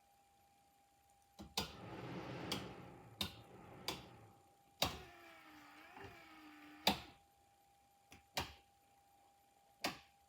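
Rocker switches on a UTV dash switch panel being clicked on and off about nine times as each is tested. Between clicks, the accessories they power run briefly: a rushing noise for about three seconds starting a second and a half in, then a humming tone with a slight waver for about two seconds, each starting and stopping at a click.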